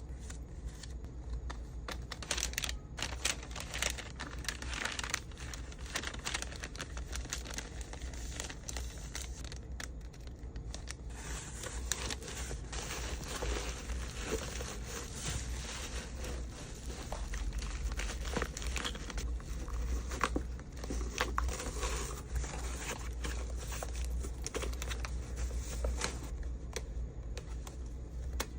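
Packaging being handled for packing: plastic and paper crinkling with many small clicks and taps, with a steady low hum underneath.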